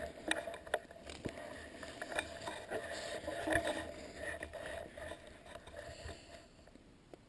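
Handling noise from the camera being set in place and adjusted: scattered knocks, scrapes and rustles that die away about six seconds in.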